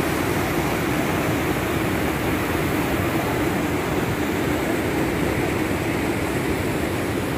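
Steady rush of white water pouring fast over rocks where a mountain lake drains out through a stone-lined outlet channel.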